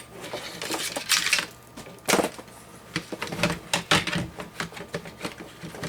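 Irregular clicks and knocks of a plastic case fan being handled and fitted into a PC case, with several louder knocks.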